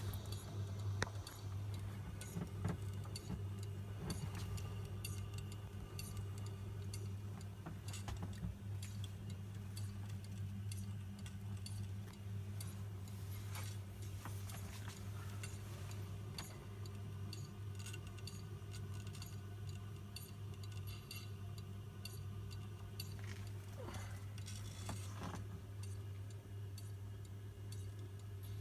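Ela 103 record-cutting lathe running with a steady low electrical hum, and irregular small clicks and ticks throughout.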